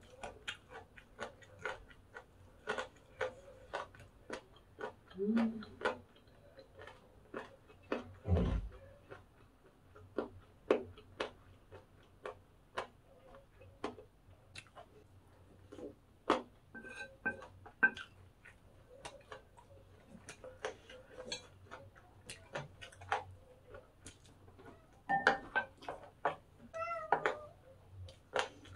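Chopsticks and a spoon clicking and scraping against a ceramic plate while gathering the last of the fried rice, with crunchy chewing of pork cartilage. A few short pitched cries come in around the middle and near the end.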